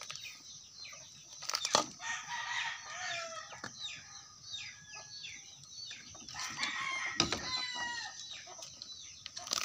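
Chickens calling throughout, many short falling calls. Two sharp chops, about 2 s and 7 s in, fit a large knife striking the wooden chopping block.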